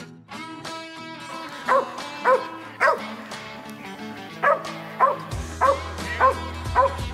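Squirrel cur dog barking treed at the base of a tree, signalling a squirrel up it: eight sharp barks about two a second, with a short pause partway through, over guitar background music.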